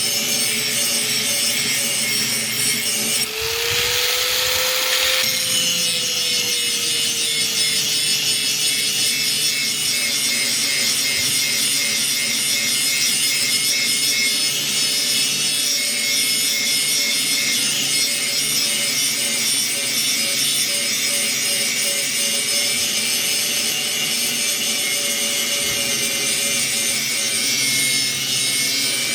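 Axe blade being ground for sharpening: a steady grinding hiss over a low hum. The grinding turns heavier for about two seconds, three seconds in, while the hum rises in pitch and then slowly settles.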